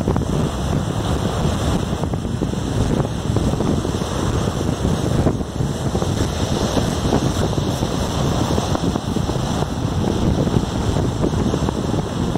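Wind buffeting the microphone over the steady rush of ocean surf breaking on the shore.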